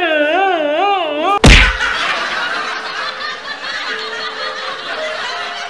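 A man's exaggerated crying wail, wavering up and down in pitch, broken off about a second and a half in by a loud bang, then laughter for the rest.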